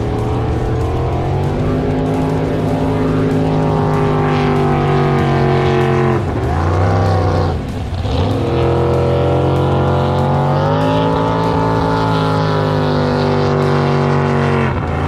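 Jet boat engine running at speed on the water, pitch climbing slowly as it pulls. About six seconds in the throttle is chopped and the revs fall away, then come back up after a brief second dip, and they drop once more near the end.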